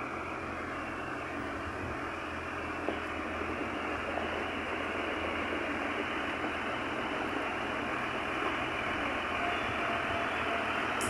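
Motor grader's diesel engine running steadily as the machine drives closer, growing slightly louder.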